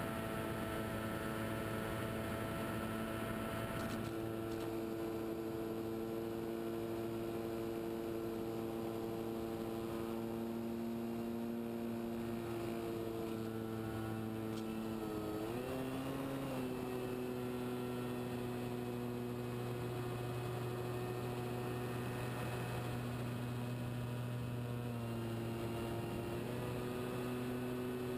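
Motor of a radio-controlled scale Tiger Moth model biplane running steadily in flight, heard from on board over a haze of wind and airframe noise. Its pitch wavers about halfway through and settles a little higher.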